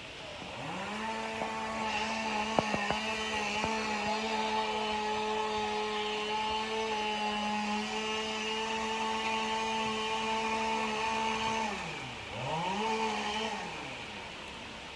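Firefighter's gas-powered two-stroke saw on the roof revving up to full throttle and holding steady for about ten seconds, then dropping back, revving briefly once more and dropping again. A few sharp knocks come about three seconds in. The saw is cutting a ventilation hole in the roof.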